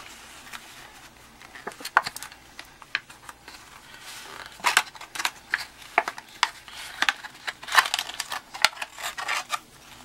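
Stiff clear plastic blister packaging and its paper insert card crackling and rustling as they are handled, in irregular sharp crackles that grow busier in the second half.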